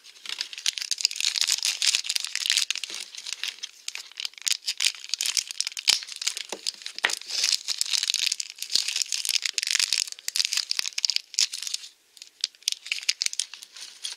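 Plastic blind-bag wrapper being torn open and crinkled by hand: a dense, continuous crinkling with many small sharp clicks, easing off near the end.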